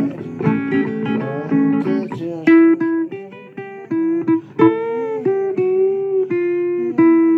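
Blues guitar playing an instrumental passage of held single notes, with several notes bent in pitch about halfway through.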